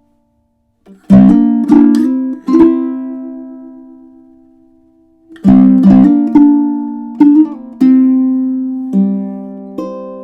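Custom tenor ukulele with tamarind back and sides and a bearclaw spruce top, played solo without effects: after about a second of silence, a few plucked notes and chords ring out and fade slowly, then a second run of plucked notes and chords starts about halfway through.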